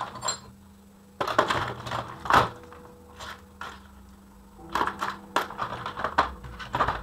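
Hand tools and small metal parts clinking and knocking on a workbench as they are handled, in two bursts of sharp clicks with a pause between.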